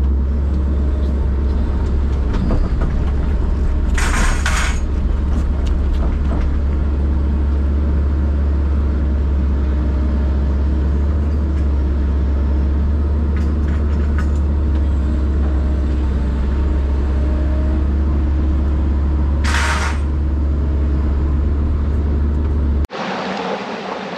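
Hitachi excavator's diesel engine, heard from inside the cab as a steady low drone, with two brief hissing sounds about fifteen seconds apart. Shortly before the end it cuts off abruptly to running water.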